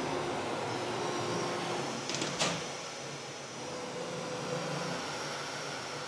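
CNC router running, its gantry moving along the table: a steady mechanical hum and hiss, with a short cluster of sharp clicks about two seconds in.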